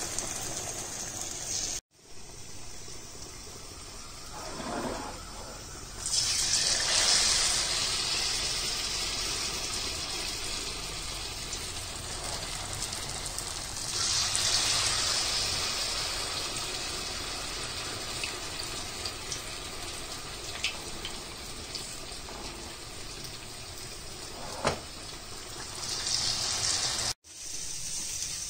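Batter-coated cauliflower florets deep-frying in hot oil: a steady sizzle that swells sharply twice, about six and fourteen seconds in, and slowly eases back after each.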